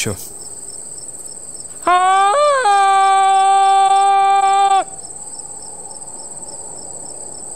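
Crickets chirping steadily. For about three seconds in the middle, a louder single held tone sounds over them: it rises briefly near its start, holds level, and then cuts off abruptly.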